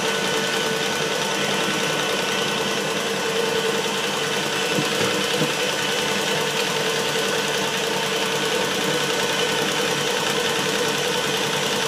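Electric tilt-head stand mixer running at full speed, a steady motor hum with a held whine, its beater whipping butter and eggs for a cake batter in a steel bowl.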